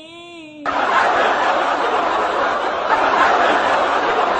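A drawn-out, wavering vocal cry that breaks off about half a second in, followed by loud, sustained crowd laughter with chatter.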